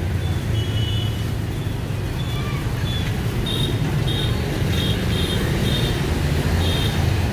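Street traffic with vehicle engines running, a steady low rumble. In the second half comes a run of short, high beeps repeated about twice a second.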